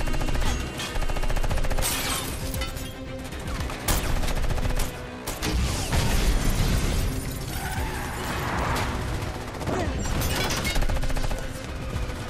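Gunfire in rapid, repeated bursts, many shots in quick succession, mixed with film score music.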